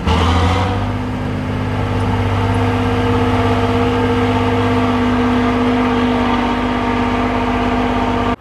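Tatra trial truck's diesel engine running hard under load as the truck climbs a steep dirt bank; the engine note rises slightly in the first second, then holds at steady high revs.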